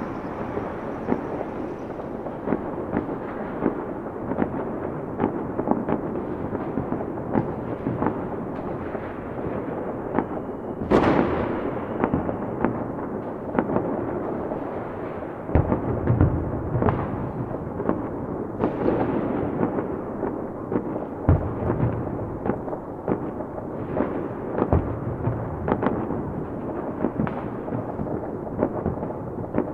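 A dense barrage of fireworks: continuous popping and crackling with frequent sharp bangs, one especially loud burst about eleven seconds in, and several deep booms later on.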